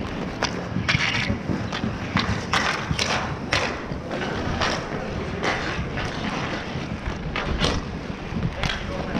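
Inline skate wheels rolling and scraping on asphalt, with an irregular stream of sharp clacks from hockey sticks hitting the ball and the pavement. A low wind rumble on the microphone runs underneath.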